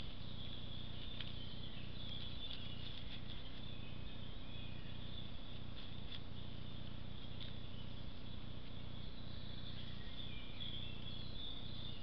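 Distant woodland birdsong, high chirps and trills that come and go, over the trail camera's own steady low electrical hum. A few faint clicks are heard, and the chirping grows busier near the end.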